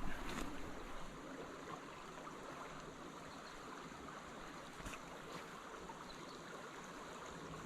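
Spring creek water flowing, a steady faint rush, with a couple of small clicks.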